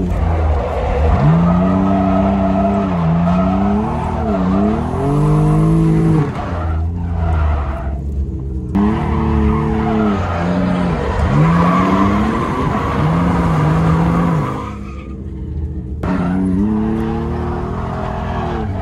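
Mitsubishi 3000GT drift car heard from inside the cabin while drifting: the engine revs rise and fall again and again, with tyres squealing and skidding over it. The tyre noise breaks off briefly twice, about eight and fifteen seconds in.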